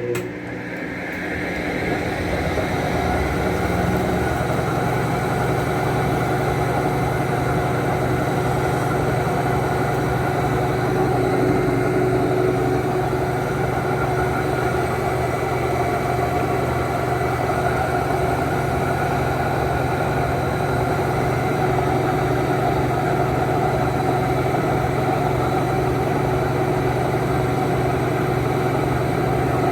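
Whirlpool Clean AWM 468 5 kg washing machine running in its intermediate rinse. A steady motor hum builds up over the first few seconds and then holds even.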